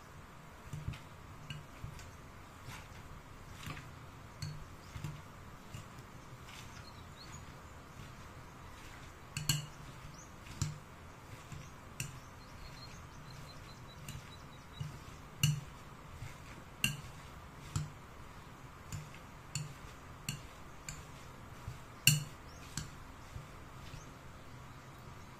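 Wire potato masher crushing cubes of firm tofu in a glass bowl. The metal head knocks and clinks against the glass about once a second at an uneven pace, with a few louder strikes.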